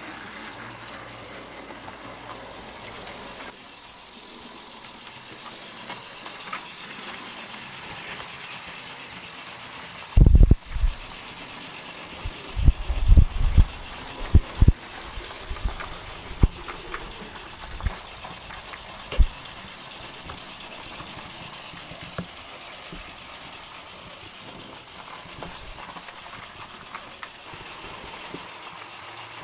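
Fleischmann model steam locomotive pulling a freight train around the track: a steady small-motor whir and wheel rattle on the rails. About a third of the way in comes a cluster of loud low thumps, with a few more scattered after it.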